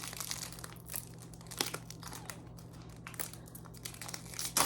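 Foil Pokémon booster pack wrappers crinkling as they are handled, in irregular crackles, with a sharper crackle near the end.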